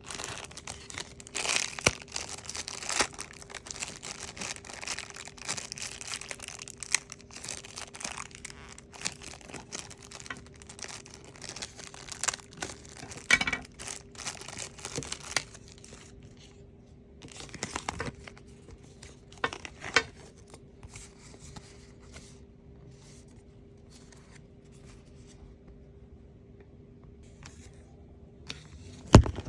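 Toy packaging being torn open and crinkled by hand, a dense crackling for about the first half. After that come only scattered rustles and a few sharp clicks near the end, over a faint steady hum.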